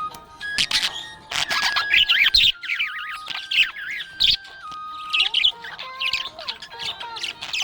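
Budgerigar chirping and warbling in quick, busy chirps, with a short lull about halfway through.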